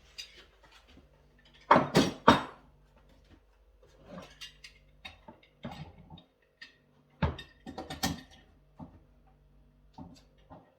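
Woodworking clamps and wooden clamping blocks knocking and clattering as the clamps are fitted and tightened over a glued-up workpiece. There are a few sharp knocks, two close together about two seconds in and another pair about seven to eight seconds in, with lighter taps and scrapes between them.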